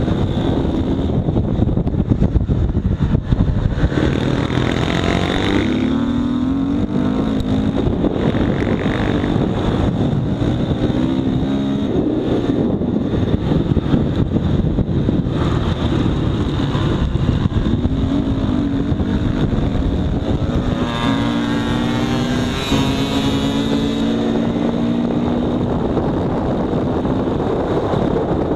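Motorcycle engine running hard at speed, its pitch rising and falling repeatedly as it accelerates and backs off, under heavy wind rush on the microphone.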